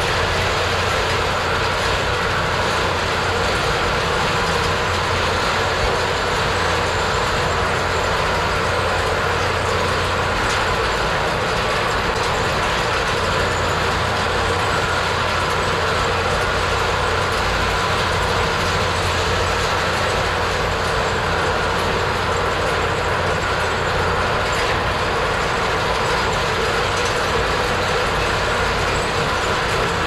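Hay bale elevator running, its chain conveyor clattering steadily as bales are carried up into the mow.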